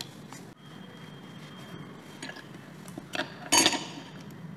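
Small metal parts of an opened hard disk drive being handled during disassembly: a few faint clicks, then a brief metallic clatter with a light ring near the end.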